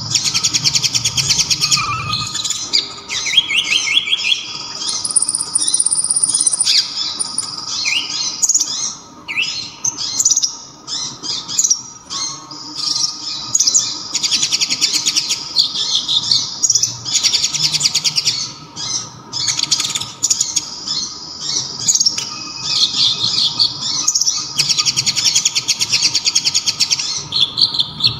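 Kolibri ninja (konin) sunbird singing: bouts of fast, high-pitched trilling chatter broken by quick rising and falling sweeps, with short pauses between bouts. A faint steady tone runs underneath.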